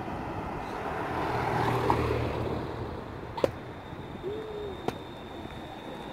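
A car driving past on a city street, its engine and tyre noise swelling to a peak about two seconds in and then fading. Two sharp clicks follow, and a faint, steady high tone sets in as a tram draws near.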